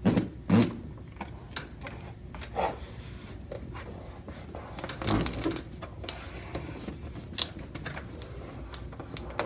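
Scattered light taps, clicks and rubbing from hands pressing a new adhesive keypad overlay onto a console panel to work out air bubbles. There are sharper knocks about half a second in and about five seconds in.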